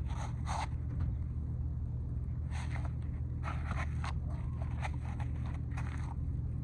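A small 8mm ratchet scraping and clicking in short, irregular strokes as the dirt bike's chain guard bolts are tightened, over a steady low hum.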